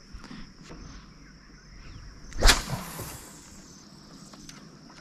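A fishing rod swished hard in a cast about two and a half seconds in: one sharp whip through the air, followed by about a second of fading hiss.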